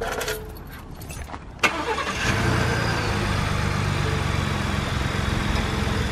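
A sharp click, then the Ford F-150's 3.5L EcoBoost twin-turbo V6 is cranked and catches about two seconds in, settling into a steady idle through an open CVF dual cold-air intake. A faint turbo whistle sits above the idle.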